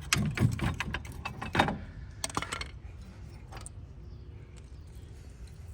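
Metal clicks and clatter of a rear brake caliper being pried off its bracket, a quick run of sharp knocks over the first few seconds, then only faint sounds.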